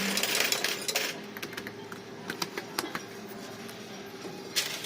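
Fruit machine clicking and rattling rapidly for about the first second and again near the end, with a faint steady electronic tone and scattered ticks in between.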